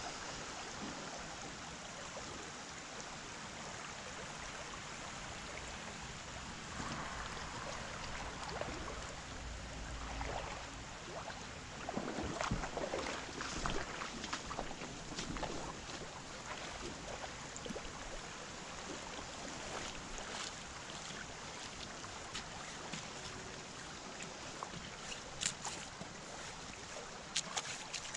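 Shallow creek water running steadily over a riffle, with scattered sharp clicks and splashes, most of them in the middle and near the end.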